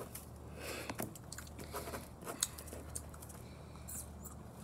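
Faint scratching and irregular small ticks of a pen writing on a sheet of paper on a tabletop.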